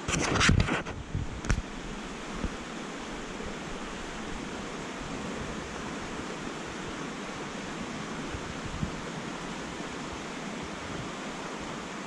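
Swollen, muddy creek rushing over a shallow ford, a steady wash of water. In the first second or so there are a few loud bumps and rumbles on the microphone.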